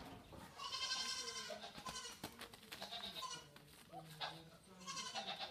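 Nigerian dwarf goat kids bleating: about four calls, the first the longest at over a second, the others shorter.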